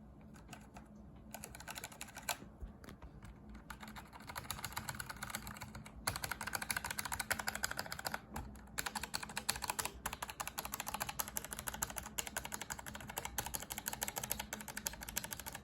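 Logitech G513 mechanical keyboard typed on with its keycaps removed, bare switches clicking in fast continuous runs. The typing is lighter for the first few seconds, then denser and louder from about six seconds in, with a couple of brief pauses.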